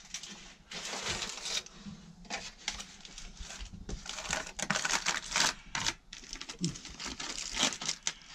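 Foil-faced bubble insulation crinkling and rustling in irregular bursts as it is handled and pressed into place.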